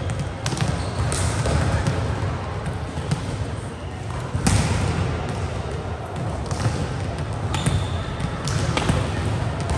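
Volleyballs being struck and bouncing on a gym floor during passing practice: irregular sharp smacks every second or two, over a steady background of voices in a large hall.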